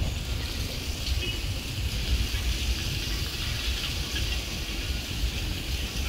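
Wind buffeting the microphone in uneven gusts, a low rumble over a steady high hiss.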